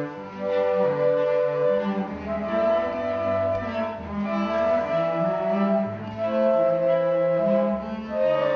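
String ensemble of cellos and violins playing slow, sustained chords together, the notes changing every second or two.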